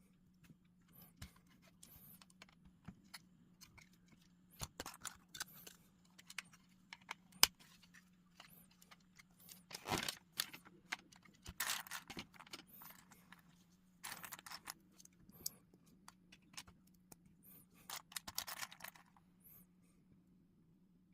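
Small plastic LEGO pieces clicking and rattling as they are handled and pressed together, with short bursts of rummaging through loose pieces and one sharp click near the middle. A faint steady low hum lies underneath.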